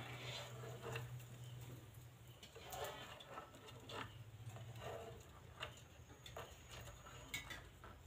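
Rose-ringed parakeet pecking and scrabbling on a wooden tabletop: faint, scattered taps and scrapes of beak and claws on the wood.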